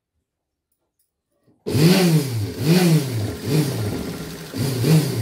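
Sewing machine stitching a seam in bursts: it starts suddenly about a second and a half in, its motor speeding up and slowing down four times, roughly once a second.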